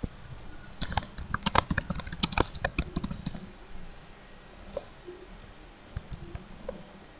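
Typing on a computer keyboard: a quick run of keystrokes lasting about two seconds, followed by a few single clicks spaced apart.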